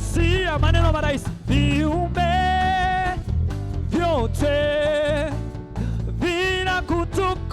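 Gospel praise song: a singer holds long, wavering notes over a band's steady bass and beat.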